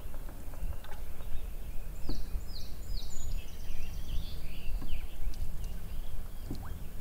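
A songbird sings a quick run of down-slurred whistled notes in the middle, over a steady low rumble on the microphone. A few soft knocks or splashes from the canoe being paddled are heard, about every two to three seconds.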